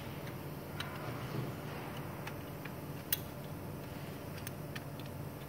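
Scattered light metallic ticks and clicks of a hand tool working on a die-cutting machine's bed die, the sharpest about three seconds in, over the machine's steady low hum.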